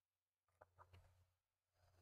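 Near silence, with a few faint clicks and a soft rustle from hands handling plastic model-kit parts and a screwdriver.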